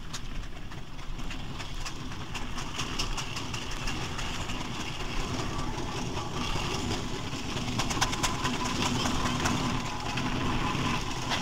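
Burrell showman's steam traction engine moving slowly across a field: a low rumble with irregular clanking and ticking that grows gradually louder as it approaches. A faint steady tone joins about eight seconds in.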